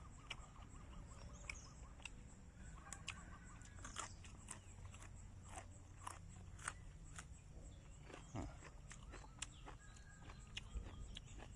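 Faint chewing and scattered small clicks of someone eating, over a thin steady high-pitched tone.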